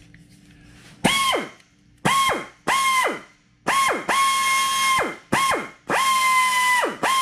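Pneumatic air drill run in short trigger bursts, about seven of them: each time it spins up to a steady high whine with a hiss of exhaust air, then winds down with falling pitch when the trigger is let go. Near the end the pitch sags briefly and recovers.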